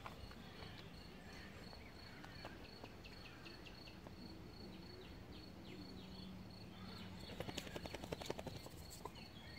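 Riverside ambience: an insect trills steadily at a high pitch while a bird gives short falling chirps. About two seconds before the end comes a burst of rapid sharp clicks, the loudest sound here.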